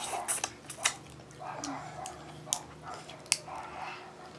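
Close-up eating sounds of shrimp being bitten and chewed with the fingers: wet chewing and lip smacking, broken by about four sharp cracks of shell.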